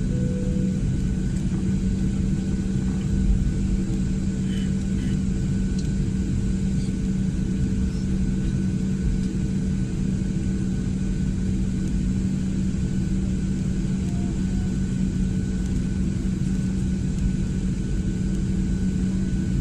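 A passenger jet's turbofan engines run at steady power, heard inside the cabin: a constant deep hum with a thin high whine above it over a steady rush. A brief stepped electronic tone ends about a second in.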